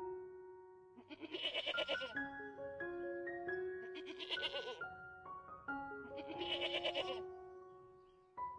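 Goat bleating three times, each call about a second long with a fast quaver, over gentle piano music.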